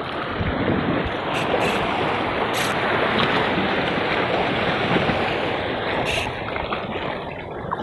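Wind buffeting the microphone over the wash of sea waves against the rocks, a steady rushing noise, with a few short clicks now and then.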